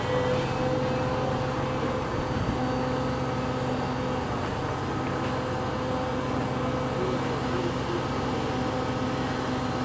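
Steady hum of running heavy machinery, an engine-like drone with a few held low tones that stays even throughout.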